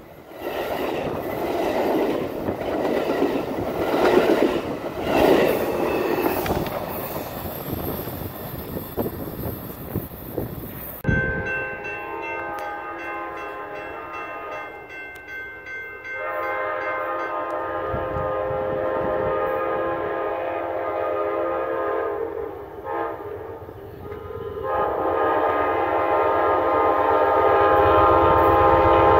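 Horn of an approaching Amtrak passenger train: a multi-note chord sounded in long blasts with short breaks, starting about eleven seconds in and getting louder near the end as the train nears. Before it comes a rough rushing noise.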